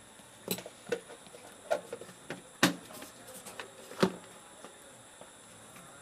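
Sharp clicks and taps of small metal dissecting tools, scissors and forceps, being handled and set down on the table: about six in the first four seconds, the two loudest near the middle.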